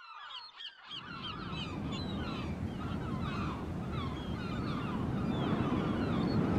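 A flock of birds calling in quick, overlapping chatter, several short curling calls a second. Beneath it, a steady low rumble starts about a second in and grows a little louder.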